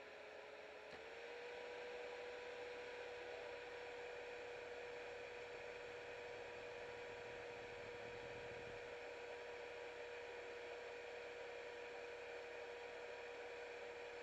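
A faint, steady high-pitched hum over a low hiss, rising slightly in pitch about a second in; a low rumble underneath stops about nine seconds in.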